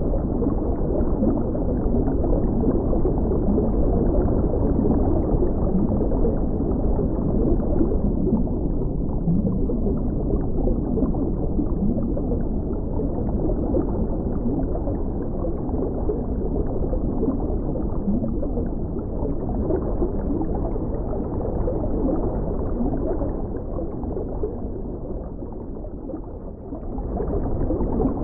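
Muffled underwater water sound: steady bubbling and rumbling, dull, with nothing high-pitched. It dips slightly just before the end.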